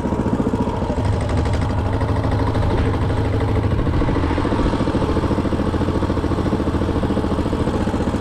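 Small walk-behind-tractor engine fitted to a three-wheeled motor scooter, running steadily with an even, fast pulsing.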